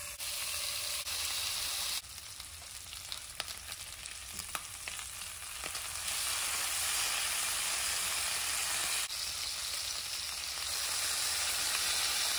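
Bacon strips sizzling and crackling as they fry in a nonstick skillet, with a few light clicks of the utensil turning them. The sizzle jumps louder a few times, most plainly about six seconds in.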